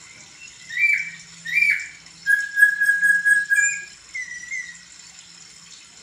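Caged poksay (laughingthrush) singing loud whistled phrases. Two short swooping notes come first, then one long held whistle that pulses in loudness, then softer notes before it falls quiet.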